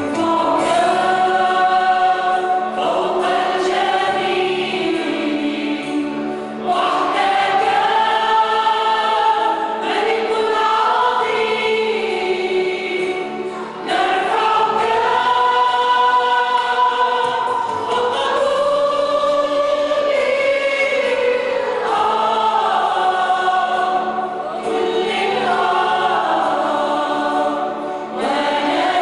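A small mixed group of women's and men's voices singing an Arabic Christian worship song together in long phrases that rise and fall, over a steady held low note.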